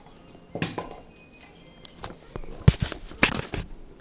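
Handling noise from small plastic toys being moved by hand over a wooden floor: scattered light clicks and knocks, with a brief rustle about half a second in and a louder run of knocks around three seconds in.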